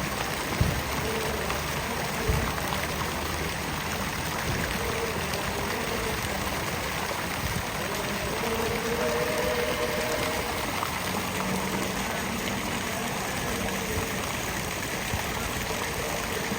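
Fountain water splashing and running in a steady wash, with a couple of brief knocks in the first few seconds.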